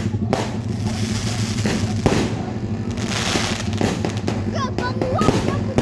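Consumer fireworks cake, a 36-shot Pearl of the Pacific, firing: a few sharp bangs, the loudest about two seconds in, with crackling between them.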